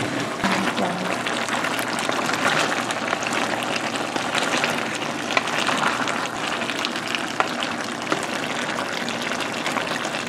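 Squirrel meat sizzling in a hot frying pan as it is stirred with a wooden spoon: a steady hiss full of fine crackles.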